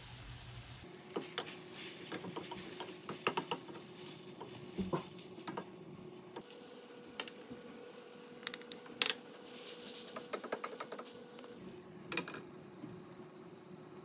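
Noodles and vegetables sizzling quietly in a stainless steel pan, with scattered clinks and taps of utensils and a glass lid against the pan.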